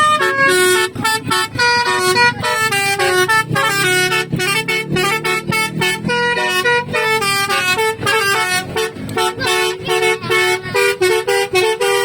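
Basuri musical car horn playing a fast melody of quick stepped notes, several a second, with no break.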